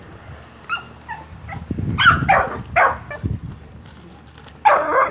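Pit bull terrier barking in short, sharp barks, about half a dozen, the loudest near the end.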